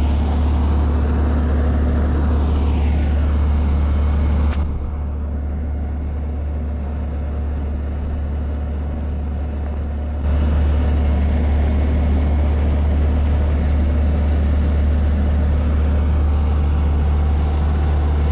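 Amphicar's 1147 cc Triumph Herald four-cylinder engine running steadily while the car cruises afloat, a low, even drone. It turns somewhat quieter about four and a half seconds in and comes back up about ten seconds in.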